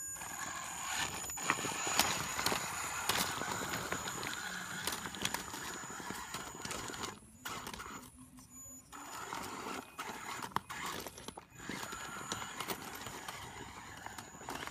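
Electric drivetrain of an Axial Wraith 1/10-scale RC rock crawler whining as it climbs over loose rocks, with tyres and chassis clattering and knocking on the stone. The motor stops briefly twice around the middle.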